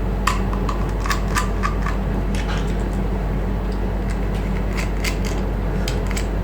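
Small metallic clicks and ticks of a screwdriver turning out the side screws that hold a laptop hard drive in its metal caddy, in two bursts, over a steady low hum.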